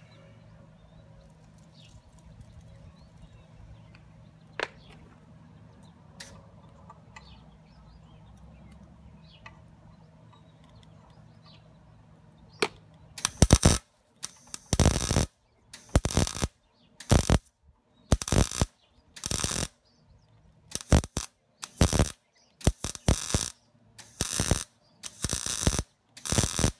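Wire-feed welder arc crackling in about a dozen short bursts, each under a second, starting about halfway in: stitch-welding a cracked steel scooter exhaust pipe back together. Before the welding starts there is only a low hum and a few clicks.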